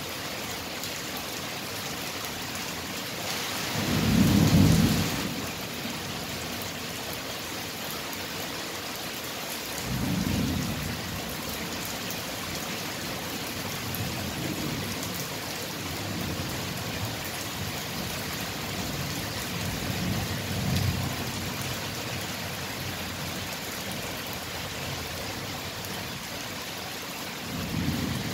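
Thunderstorm: steady rain with thunder rumbling several times. The loudest roll comes about four seconds in, another about ten seconds in, and fainter ones later and near the end.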